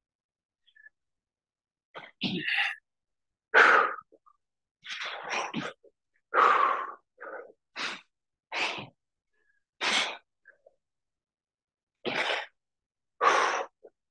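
A man breathing out in short, forceful bursts with the effort of each dumbbell rep, roughly once a second with a couple of short pauses.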